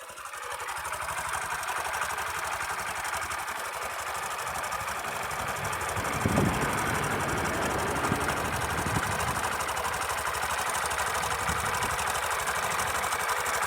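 Sundiro Honda CBF125T's single-cylinder engine idling with a rapid, fairly loud ka-ka-ka clatter, which the owner takes for timing chain noise. A brief louder burst comes about six seconds in.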